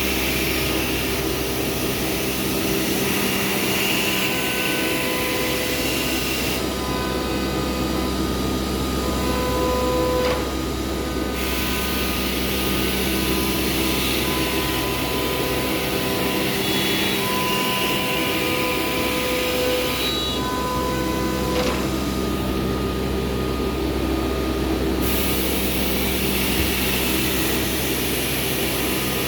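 CNC router milling MDF fronts: a steady machine hum with a high hiss over it. The hiss drops away twice for a few seconds while the hum carries on.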